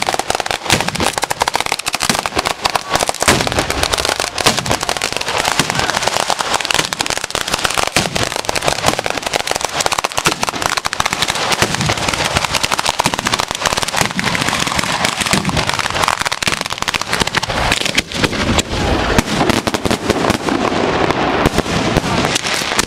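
A batteria alla bolognese, a ground-level barrage of firecrackers, going off in dense, rapid, unbroken succession.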